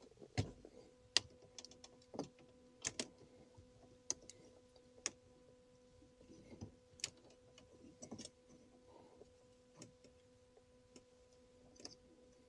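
Plastic trim removal tools prying at the start-stop button housing in a BMW F30 dashboard: scattered light clicks and taps of plastic on plastic, about a dozen, over a faint steady hum.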